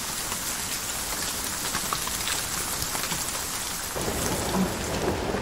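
Recorded rain sound effect, a steady hiss of falling rain, with a low rumble joining about four seconds in.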